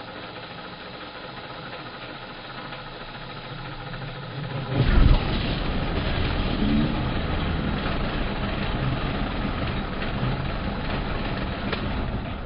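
Milling machine running, its motor humming steadily; about five seconds in it turns much louder and noisier as the end mill starts cutting across the brake caliper's face, and keeps cutting steadily.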